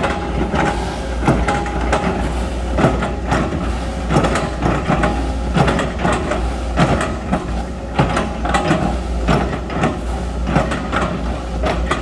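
Sumitomo hydraulic excavator working: its diesel engine runs with a steady low rumble under frequent, irregular knocks and clanks from the machine at work.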